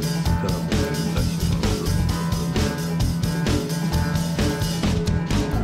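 Background music with a steady beat: a rock track with guitar and drums.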